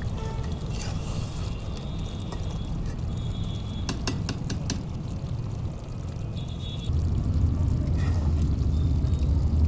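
Slotted metal spoon stirring chicken masala in a steel kadai, clinking against the pan a few quick times about four seconds in, over a steady low rumble that grows louder near the end.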